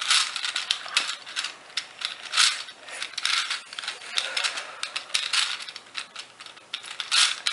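Plastic Gear Ball twisty puzzle being turned quickly by hand: a fast, irregular run of plastic clicks and clacks as its gears and layers rotate.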